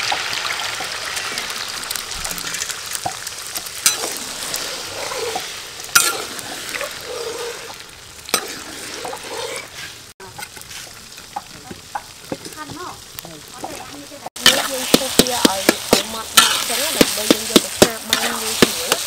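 Beaten eggs sizzling in oil in a large steel wok, the sizzle fading as they set. Near the end a metal spatula scrapes and clacks quickly against the wok as the eggs are scrambled, the loudest part.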